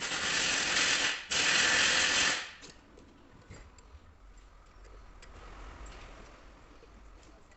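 Wrench, most likely a powered ratchet, spinning the nut off the rear shock absorber's top mount in two bursts of about a second each, with a brief pause between, followed by faint clicks of the parts being handled.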